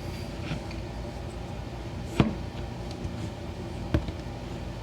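Two short, sharp knocks about two seconds apart over a steady low background hum.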